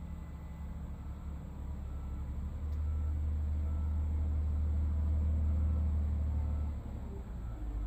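Large excavator's diesel engine running with a deep rumble that swells louder about three seconds in, as if under working load, and eases back near the end.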